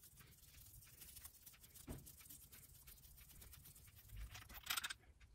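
Near silence with faint handling noises: gloved hands unscrewing a suspension fork's air chamber cap, with one light click about two seconds in and a brief rustle or scrape near the end.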